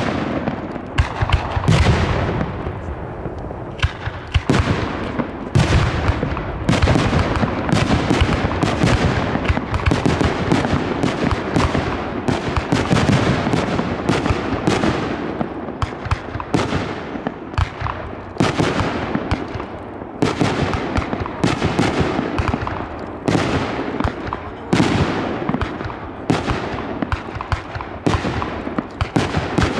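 Aerial firework shells launching and bursting in a dense barrage: sharp bangs, often more than one a second, over a continuous rumble of further bursts.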